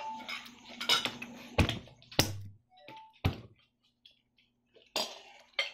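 Tableware knocking on a dinner table: spoons, plates and a rice bowl clinking and being set down, about six sharp taps spread out, with a quiet gap shortly after the middle.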